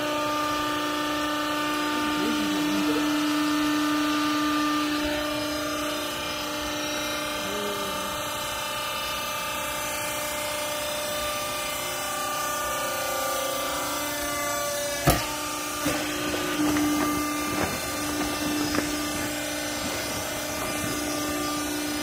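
Vertical hydraulic clothing baler's electric motor and hydraulic pump running with a steady hum. A sharp metallic knock comes about two-thirds of the way through, followed by a few lighter knocks.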